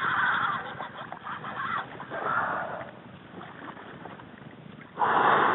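Fishing reel's drag buzzing in bursts as a hooked king mackerel runs and strips line off it. The first and longest burst comes at once, a shorter one follows about two seconds in, and another starts near the end.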